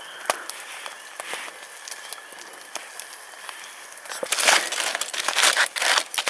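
Aluminium foil packet crinkling loudly as it is unwrapped by hand, starting about four seconds in, after a few seconds of faint scattered crackles.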